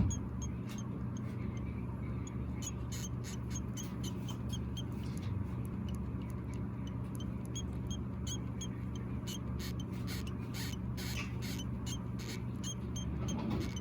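Five-day-old Djungarian hamster pups squeaking while nursing: many short, high-pitched squeaks a few times a second, with soft clicks and rustles, over a steady low hum.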